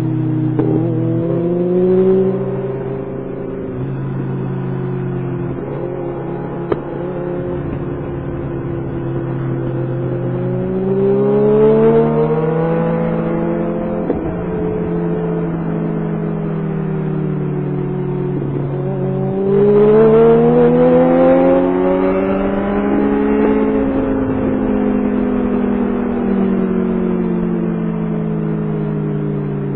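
Kawasaki Concours 14's inline-four engine under way, its pitch rising and falling with the throttle through the bends. It climbs hard about eleven seconds in and again just before twenty seconds, then eases back each time.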